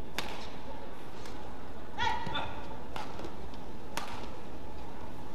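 Badminton rally: sharp racket hits on the shuttlecock about once a second, with a short high squeak of court shoes on the floor about two seconds in, over a steady arena hum.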